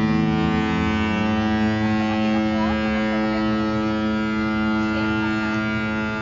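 Cruise ship's horn blowing one long, steady, deep blast. A second, lower horn tone sounding with it stops about a second in.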